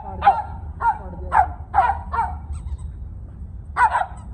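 Dog barking in short, falling yaps: five in quick succession, then two more close together near the end.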